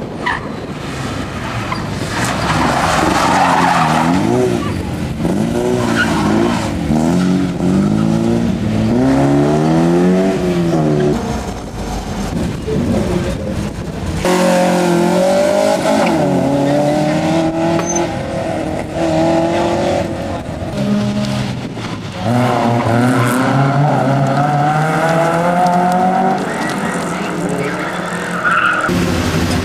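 Rally car engines at high revs: an Opel Kadett rises and falls in pitch through gear changes, with a burst of tyre squeal a few seconds in. After a cut, an Opel Manta pulls away and revs up through the gears.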